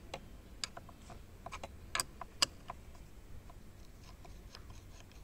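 Scattered sharp metallic clicks and taps as a long screwdriver works at the airbag's spring clips through the release holes in a steering wheel's metal frame. The two loudest clicks come close together a bit after two seconds in.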